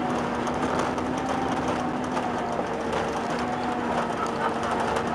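Steady cabin noise inside a Boeing 767-300ER, from its Rolls-Royce RB211 engines and airflow: a steady hum with a few held tones and faint repeated clicking.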